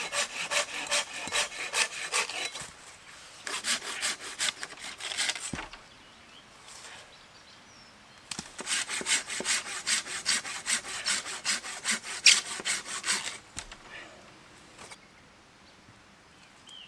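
Hand saw cutting through firewood with quick back-and-forth strokes, about four or five a second. The sawing comes in three bouts: two short ones, then a pause of about three seconds, then a longer bout of about five seconds.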